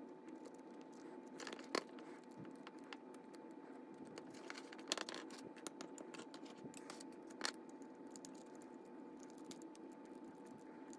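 Faint handling noises of a small brass model locomotive: a few light clicks and scrapes as the body shell is fitted onto the chassis and worked with a screwdriver, over a steady low hum of room tone. The clicks come about two, five and seven and a half seconds in.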